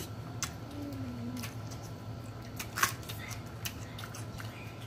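Close-miked eating sounds: scattered small clicks of chewing and lip smacking, with a louder click a little under three seconds in, over a steady low hum.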